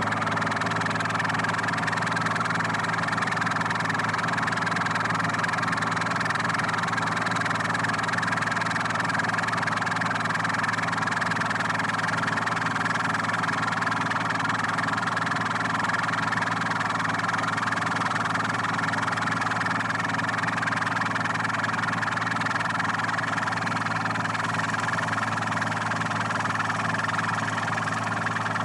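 Engine of a tree-cutting machine running steadily at constant speed, an even hum with no change in pitch or level.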